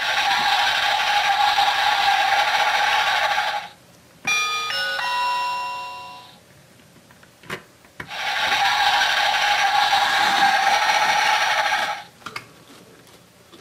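Battery-powered sound unit in a Chuggington wooden crossing-platform toy, set off by its roof button. It plays an electronic bell-like ringing for about three and a half seconds, then a short chime of a few stepped notes, then the ringing again for about four seconds.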